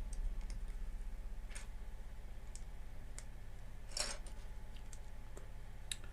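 A few scattered, light clicks and taps of small plastic Lego pieces being handled, over a steady low hum.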